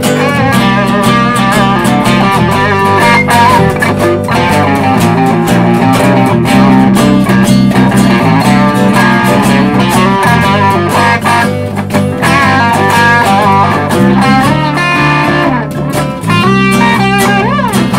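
A band playing a blues instrumental break: an electric guitar lead with bent notes over bass and rhythm guitar.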